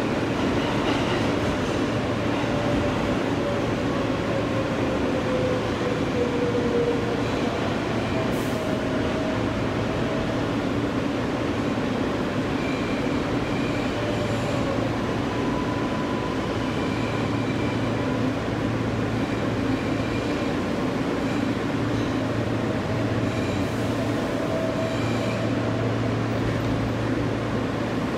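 New York City subway train, an R143, running along the track: a steady rumble of wheels and motors, with a faint whine that slides slowly up and down in pitch.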